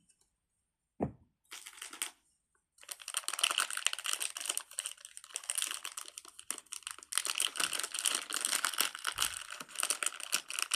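A single thump about a second in, then plastic packaging crinkling and crackling steadily as it is handled and pulled at by hand to get it open.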